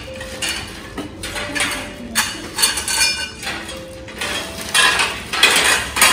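Metal pieces knocked and handled together, clinking and rattling with a bright ring in a string of short irregular bursts.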